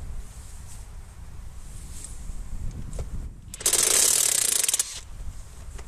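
Draper Expert XP20 20 V brushless 3/4" impact wrench hammering in one short burst of about a second, about two-thirds of the way in, breaking loose a long-seized tractor wheel nut.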